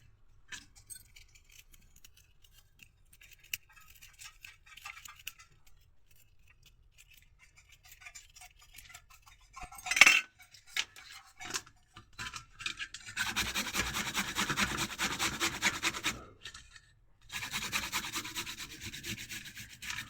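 Kitchen handling sounds: a sharp clink about halfway through, then two stretches of steady, rapid rubbing, each about three seconds long.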